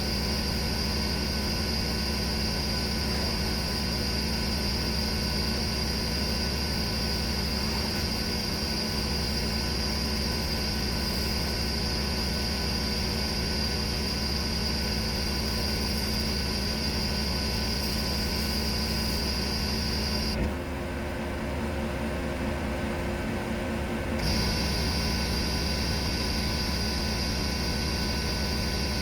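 4,000 psi Hotsy pressure washer running steadily while a 20-inch Whirlaway surface cleaner sprays on concrete, a constant hiss over the machine's drone. About two-thirds of the way through, the spray hiss stops for some four seconds, leaving only the machine running, then starts again.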